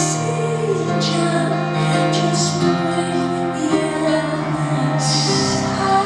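Music: sustained keyboard chords with a woman singing over them.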